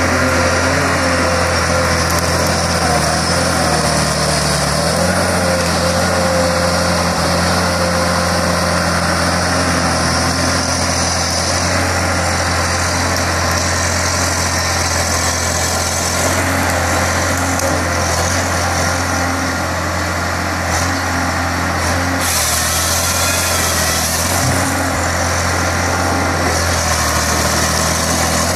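Timberjack wheeled forestry harvester's diesel engine running steadily under load, with hydraulic whine as the harvester head grips and feeds a log. The engine note steps up a few seconds in, and there is a brief harsh burst about three-quarters of the way through.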